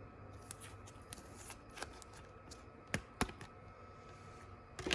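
Trading cards being handled: soft rustling with scattered light clicks and taps, two sharper ticks about three seconds in and another near the end.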